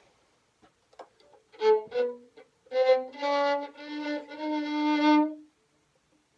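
Solo violin playing a shifting exercise through the upper positions (4th to 7th): two short bowed notes, then a few longer held notes that stop about five and a half seconds in. A few faint knocks come before the first note.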